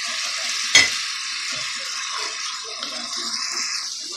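Onion masala for fish curry sizzling in oil in a pot as tomato sauce is poured in and stirred with a wooden spatula, with one sharp knock against the pot about a second in.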